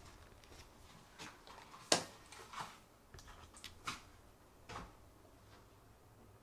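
A wall rocker switch clicks sharply just before two seconds in. Several softer clicks and knocks are spread through the rest of the few seconds.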